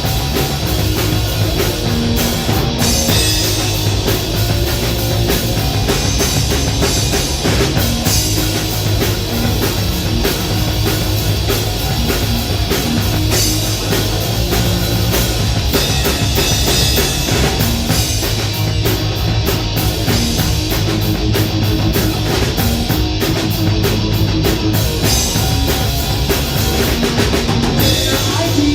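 Live rock band playing loud and without a break: distorted electric guitars over a pounding drum kit, in a heavy, punk-leaning style.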